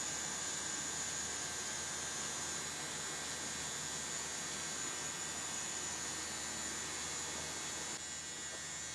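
Steady electrical hum and hiss with a faint, steady high-pitched whine, and no distinct events; it drops slightly in level near the end.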